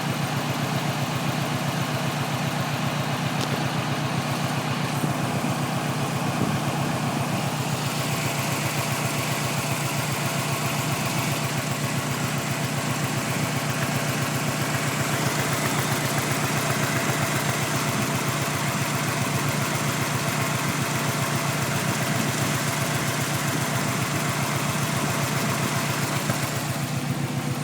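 Subaru Impreza WRX flat-four engine idling steadily with an even, rhythmic pulsing note. The owner suspects a misfire but is not sure whether the sound is normal.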